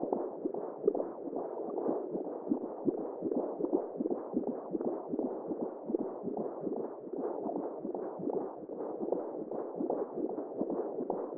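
Womb sound: a steady, muffled whooshing held in the low and middle range, flickering unevenly in level with many small pulses.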